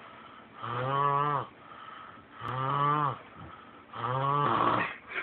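Snoring: three drawn-out, pitched snores about two seconds apart, the last trailing off into a rougher, breathy rasp.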